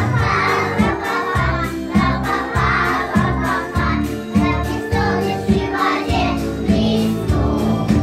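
Children's song with a steady, bass-heavy beat and a chorus of young children singing along.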